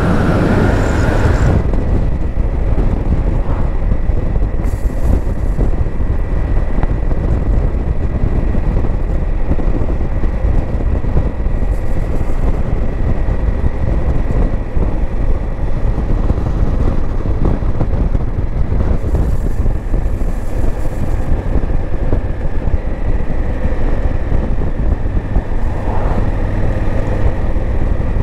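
Motorcycle running at a steady cruising speed: a continuous engine, road and wind rumble with a thin, steady high whine throughout.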